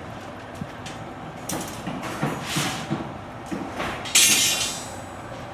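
Rebar cutting machine at work: metallic clanks and knocks, then a loud, sharp burst about four seconds in that fades within half a second.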